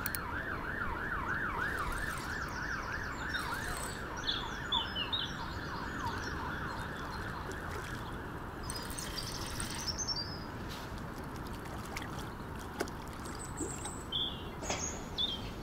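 Spinning reel whirring with a fast, even rise and fall, about four times a second, while a hooked carp is played on the line; it fades out about seven seconds in. Birds chirp now and then.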